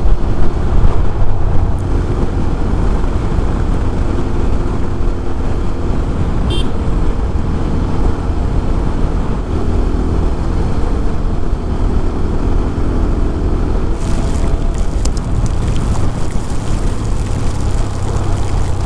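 A TVS Apache RTR 200 4V's single-cylinder engine running steadily under a rider on the move, under a heavy low rumble. A brief high tone sounds about six and a half seconds in, and a hiss joins about three-quarters of the way through.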